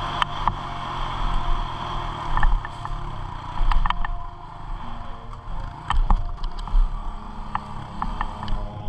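Honda CRF110F pit bike's small air-cooled single-cylinder four-stroke engine running while riding over gravel, with scattered sharp clicks and knocks.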